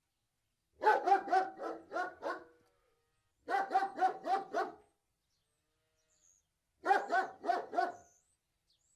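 Large Alsatian (German Shepherd) dog barking in three quick runs of about five or six barks each, with pauses of a second or more between the runs.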